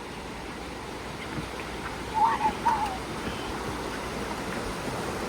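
Steady rush of flowing water from a nearby waterfall or stream. About two seconds in, two short high wavering calls stand out above it.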